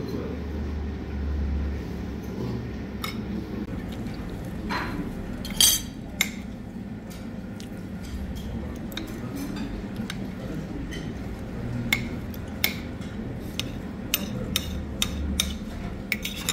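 Metal spoon and fork clinking and scraping against a ceramic plate, with scattered sharp clinks, the loudest about a third of the way in, over a steady low background hum.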